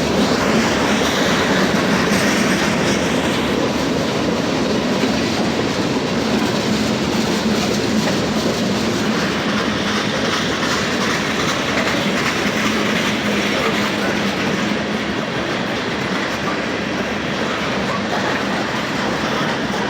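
Norfolk Southern freight train rolling past, with a steady, even noise of its wheels on the rails.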